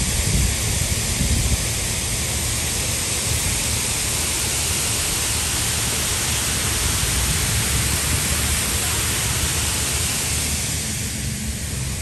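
Waterfall pouring down a rock cliff close by: a steady, loud rush of falling water that eases slightly near the end.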